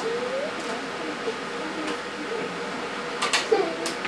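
A few short rustling rasps of fabric being handled, over a steady faint hum.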